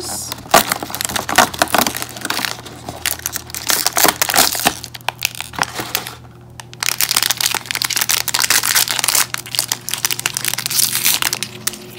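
Foil wrapper of a small toy packet crinkling and crackling as hands squeeze and tear it open, with a short pause about six seconds in.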